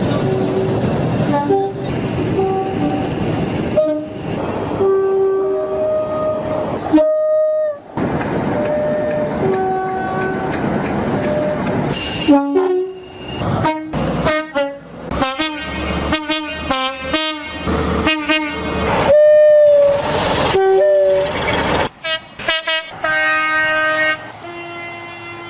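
Train horns in a run of short edited clips, over the noise of passing trains. Two-tone horns alternate a low and a high note; the middle part holds many quick short toots in a row, and near the end a steadier horn chord sounds, with abrupt cuts between clips.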